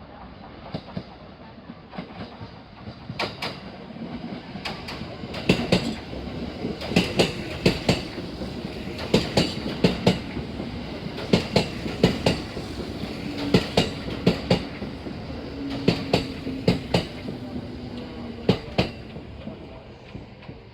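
Kintetsu electric train passing at low speed, its wheels clacking over rail joints in pairs of sharp knocks about every second over a steady rumble, fading toward the end.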